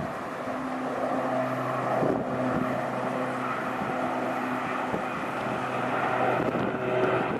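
Jet airliner's engines running, a steady drone with several held tones through it.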